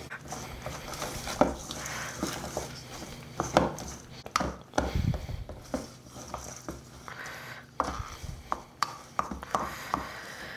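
Soaked bulgur wheat being mixed and massaged by hand with pepper and tomato paste in a bowl: soft squishing and rustling of the grains with scattered light knocks and clicks.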